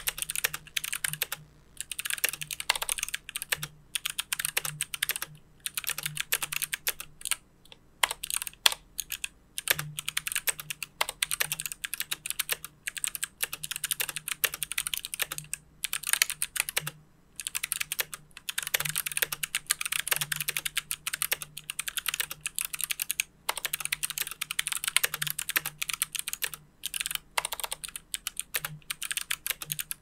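YC96 mechanical keyboard with Kailh BOX Jade switches, an extremely clicky switch, typed on in fast runs of sharp clicks broken by short pauses. The keyboard sits on a deskmat.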